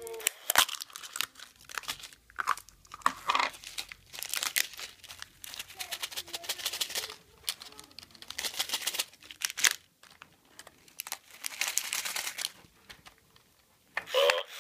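Plastic wrapping and packaging of a surprise egg crinkling and tearing in irregular bursts as it is unwrapped and opened by hand. Near the end a Furby toy's electronic voice starts.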